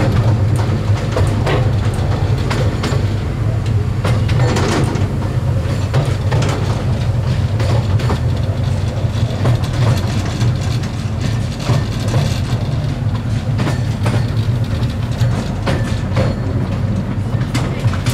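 Miniature railway train running along the track, heard from on board a carriage: a steady low rumble with irregular clicks of the wheels over the rail joints.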